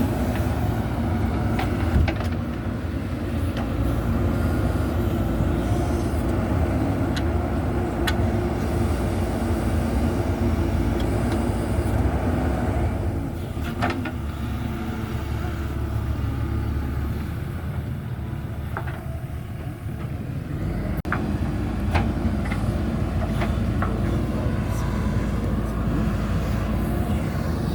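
JCB backhoe loader's diesel engine running steadily under working load, with a few sharp clanks now and then. About two-thirds of the way through, the engine note eases off briefly, then picks up again.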